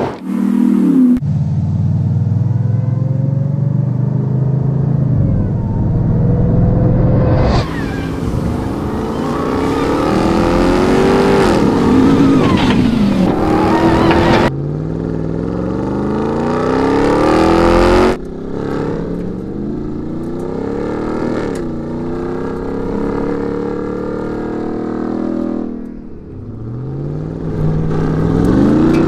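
Ram 1500 TRX's supercharged 6.2-litre V8 revving hard off-road, its pitch climbing and dropping again and again with throttle and gear changes. Several clips are cut together, so the sound changes abruptly a few times.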